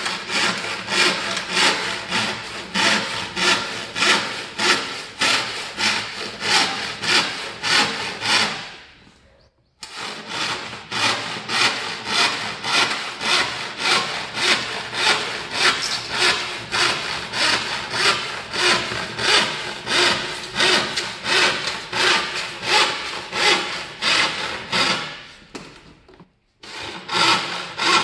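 Western-style handsaw with a 0.7 mm thin plate cutting lengthwise along a wooden board, rasping in even back-and-forth strokes at about two a second. The strokes fade out just before 9 s and again near 25 s, each time for about a second, then resume.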